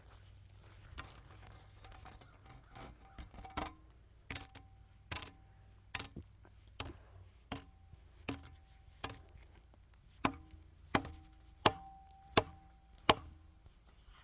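Axe chopping wood: faint taps at first, then a steady run of sharp strikes about one every three-quarters of a second, growing louder toward the end. Several strikes leave a brief ringing tone.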